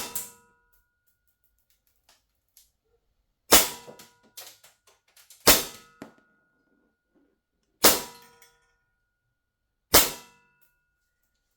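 ASG STI 2011 Combat Master CO2 blowback airsoft pistol firing five loud shots with 0.20 g BBs, about two seconds apart. Each shot is a sharp crack followed by a brief metallic ring.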